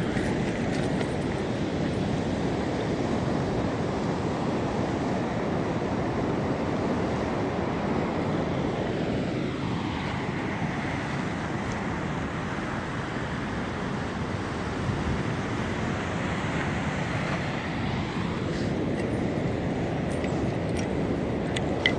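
Steady wind rushing over the microphone, with choppy sea waves washing against a concrete breakwater.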